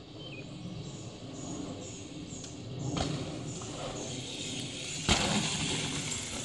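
BMX bike going over a dirt jump: a knock about three seconds in, then a loud thump about five seconds in as it lands, followed by a rush of tyre and movement noise on the dirt. In the first few seconds, short high chirps repeat about twice a second.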